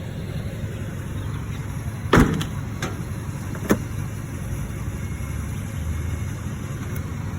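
A vehicle engine runs with a steady low rumble. A heavy thud comes about two seconds in, and a sharper knock follows about a second and a half later.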